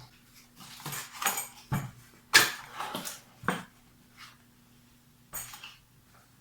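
A run of short rustles and light clinks from handling a CPU cooler's accessory parts (metal mounting brackets and their plastic packaging), the loudest about two and a half seconds in, over a faint steady hum.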